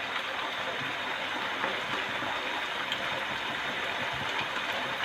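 Chicken and potato cubes frying in oil in a pot: a steady sizzle.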